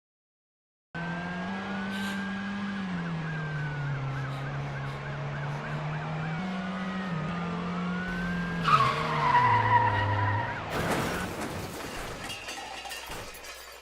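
Car engine running with shifts in pitch, then a sharp tire squeal about nine seconds in, followed by a crash and scattered debris clattering as it dies away.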